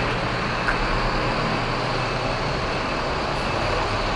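Steady rumble and hiss of city bus diesel engines idling in the garage yard, with a low hum underneath.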